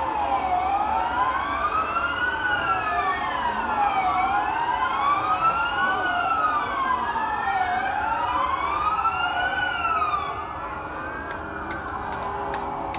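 Warsaw's civil-defence air-raid sirens wailing, several at once and out of step, each rising and falling every few seconds: the alarm that marks W-hour, the start of the Warsaw Uprising. The sirens die down about ten seconds in, and a scatter of sharp clicks follows near the end.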